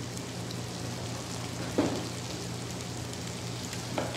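Sliced onions sizzling in oil in a frying pan, a steady hiss, with one sharp knock a little under two seconds in and a small click near the end.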